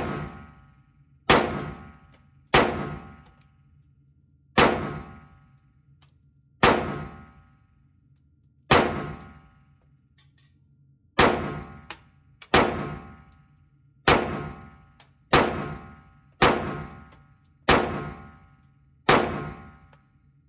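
Pistol in an MCK conversion kit firing slow, aimed single shots, about fourteen of them spaced one to two and a half seconds apart. Each sharp report rings off the walls of an indoor range for about a second.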